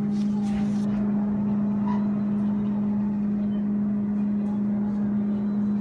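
Steady low hum of running soda vending machines: one unbroken droning tone with fainter overtones above it.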